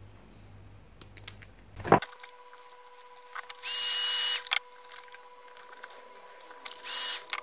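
Heat gun blowing in two short blasts, a loud hiss of air with a thin whistle, shrinking heat-shrink tubing over wire connectors: one blast near the middle and a shorter one near the end. Before them come a few clicks of side cutters snipping the tubing.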